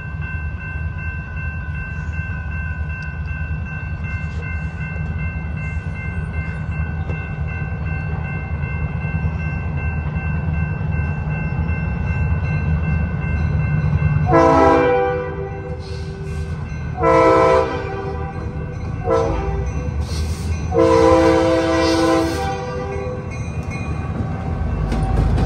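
Finger Lakes Railway diesel locomotives approaching a grade crossing, sounding the horn in the crossing pattern: two long blasts, a short one and a long one, over the low rumble of the engines, which grows louder near the end as the lead locomotive arrives. A steady high ringing from the crossing's warning bell runs underneath and stops just before the locomotive reaches the crossing.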